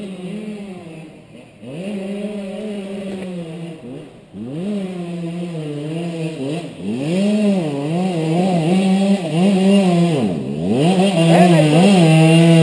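Dirt bike engine ridden hard up a hill toward the listener, its revs climbing and dropping over and over as the rider works the throttle, and growing louder as it approaches.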